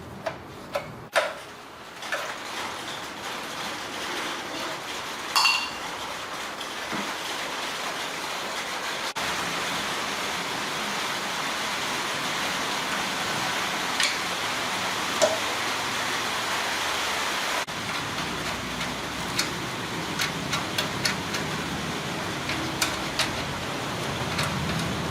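Sharp metallic clinks and taps, scattered through, over a steady hiss.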